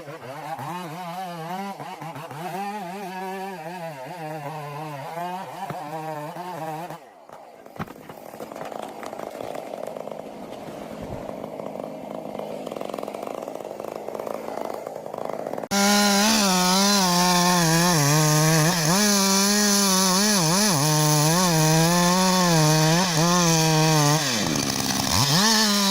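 Chainsaws cutting into large logs, engine speed wavering as the chain bites. The sound is several clips joined by abrupt cuts: about seven seconds in it drops to a quieter, rougher stretch, and past halfway a much louder saw comes in.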